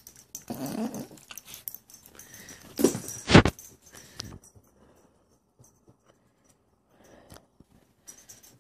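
Pomeranian-Chihuahua cross puppy making short, noisy play sounds, then a loud thump about three seconds in.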